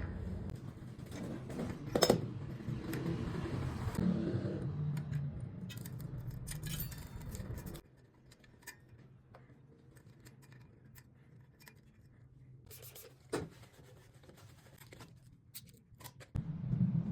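Small metal parts and tools clicking and scraping while a bicycle rear hub's ratchet mechanism is worked on. The sharp clicks are scattered, one louder about two seconds in, over a low background rumble that drops away abruptly about eight seconds in and returns near the end.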